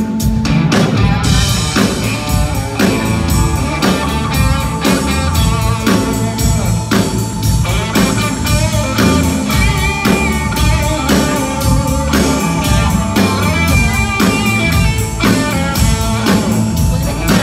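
Live blues band playing: electric guitar over bass guitar and a drum kit keeping a steady beat.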